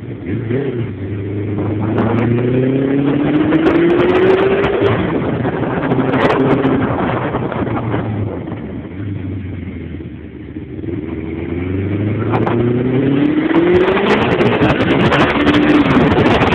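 Motorcycle engine accelerating twice, its pitch climbing through the revs in the first few seconds and again near the end, easing off and slowing in between, with wind rushing over the microphone throughout.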